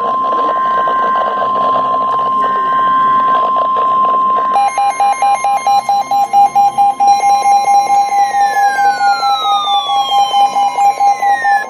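NOAA Weather Radio warning alarm tone: one steady, loud tone near 1050 Hz, signalling that a warning is about to be broadcast. About four and a half seconds in, a second electronic alarm joins it, beeping rapidly at about three beeps a second. In the second half, falling sweep tones are heard as well.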